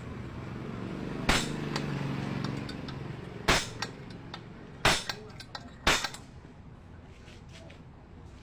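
Four sharp knocks, about a second or two apart, from metal workpieces and tools being handled while setting up to drill steel, over a low steady hum in the first few seconds.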